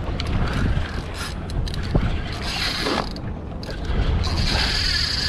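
Conventional fishing reel being cranked under load while a hooked fish is played on a bent rod, its gears whirring in two stretches, the second near the end, over a low steady rumble of wind.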